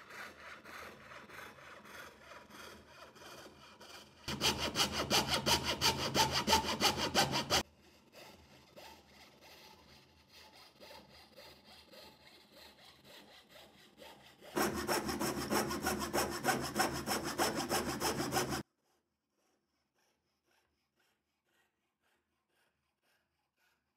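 Hand fret saw's thin blade cutting a curved line through plywood in quick back-and-forth strokes. It saws quietly at first, loudly from about four to seven and a half seconds in, quietly again, then loudly from about fourteen and a half seconds. The sound cuts off suddenly about eighteen and a half seconds in, leaving silence.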